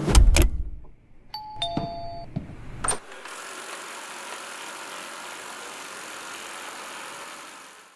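Robot vacuum's electronic chime: two beeps, the second lower than the first. A click follows, then a steady hiss that cuts off near the end.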